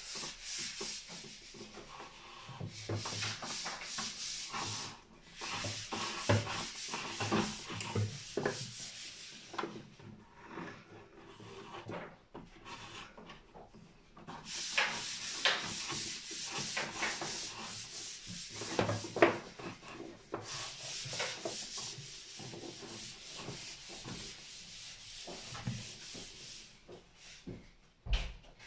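Electrical cables being handled and worked into a consumer unit: steady rustling and rubbing of cable sheathing against the plastic enclosure, with scattered small clicks and knocks. There is a quieter lull about ten seconds in.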